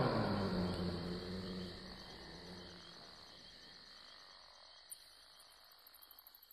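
Insects trilling steadily at a high pitch while the whole sound fades out. A lower pitched sound dies away in the first two seconds, and a single click comes about five seconds in.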